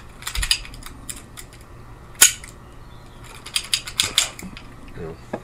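Clicks and clacks of a jammed 1911 CO2 blowback air pistol being handled and its magazine taken out to clear the jam, with one sharp metallic click a little over two seconds in and a few quicker runs of clicking near the end.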